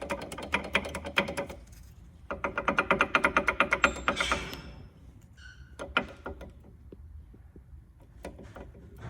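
Brake pad rattling back and forth inside the front brake caliper, a rapid metallic clacking in two spells with scattered single clicks after. The pad is loose because the T-bar pad retention clip is not flared out, the cause of the car's front-end clunk.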